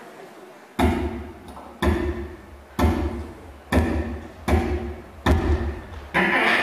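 Beatboxing into a handheld microphone: deep kick-drum beats made with the mouth, seven of them about a second apart, each with a sharp attack and a long low tail.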